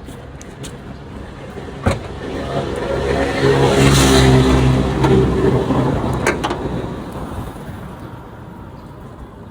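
A car drives past, its engine getting louder to a peak about four seconds in and then fading away.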